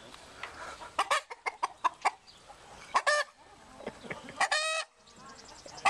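Chickens clucking: a quick run of short clucks about a second in, followed by a few longer, drawn-out calls.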